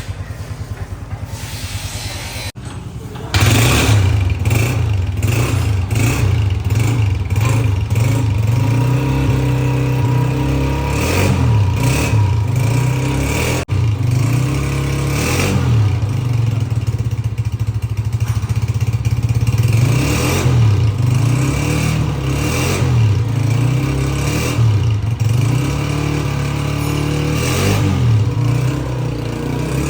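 Honda CG 125 motorcycle's single-cylinder four-stroke engine running. It ticks over quietly at first, then about three seconds in gets louder and is revved up and down repeatedly, its pitch rising and falling.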